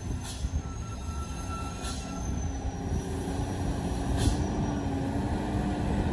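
Loaded Isuzu truck coming down a steep bend: a low engine rumble with a steady high squeal from its brakes held on the descent, growing louder as it approaches, with three short hisses.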